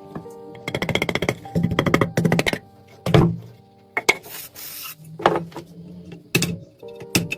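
Background music with held tones and drums: two runs of rapid drum strokes in the first few seconds, then single sharp hits spaced a second or two apart.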